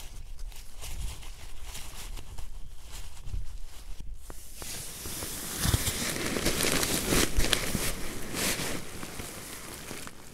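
Crinkling and rustling of a Zpacks Duplex tent's Dyneema fabric and a sleeping bag as someone moves about and handles the tent door, with small irregular clicks. It grows busier and louder about halfway through, then dies down near the end.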